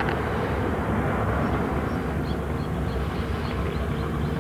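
Steady low rumble of outdoor background noise, with a few faint high chirps about halfway through.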